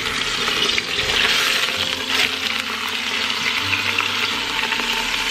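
Chuck roast sizzling as it sears in hot olive oil in an Instant Pot's inner pot on sauté mode, while tongs turn the meat over. The sizzle swells about a second in.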